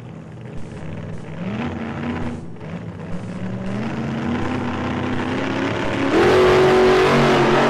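Car engine revving sound, rising in pitch in steps and growing louder, at its loudest from about six seconds in.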